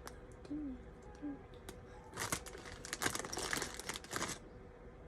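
A plastic Lego parts bag crinkling as it is handled, a dense crackle that lasts about two seconds, starting about two seconds in.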